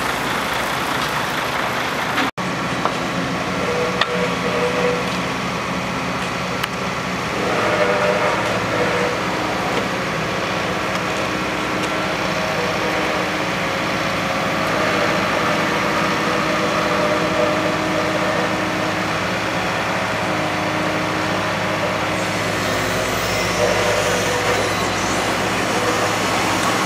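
Diesel engine of a wheeled excavator running steadily at a low hum, with occasional scrapes of hand rakes working fresh asphalt. In the first two seconds a tipper truck's engine runs as it dumps asphalt.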